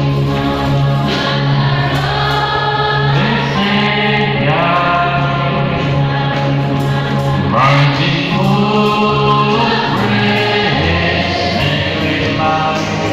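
A choir singing a Christian hymn, several voices together over a steady low tone.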